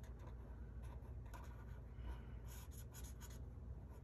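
Stampin' Blends alcohol marker colouring on paper: faint, short scratchy strokes, with a quick run of them about two and a half to three and a half seconds in.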